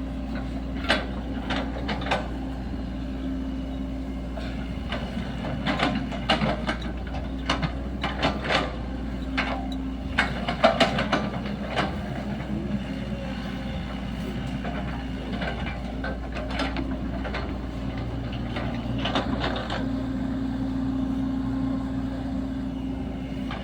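Sany SY75 mini excavator's diesel engine running steadily under working load, with many sharp knocks and clanks from the machine as it digs. The engine note grows louder near the end.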